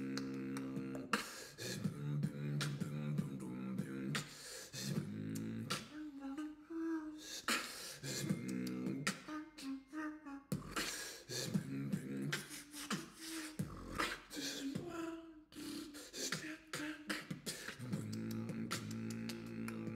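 Beatboxing: a pitched, humming vocal bass line that stops and restarts every second or two under sharp mouth-made percussive hits, with a few short higher hummed notes.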